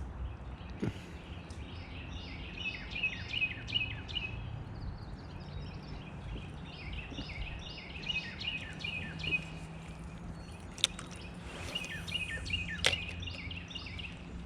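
A songbird singing runs of short, quick, repeated chirps, three bouts in all, over a steady low outdoor rumble. A few sharp clicks or knocks come through, the loudest near the end.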